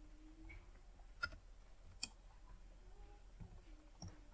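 Two faint computer mouse clicks, about 1.2 s and 2 s in, over a low steady hum.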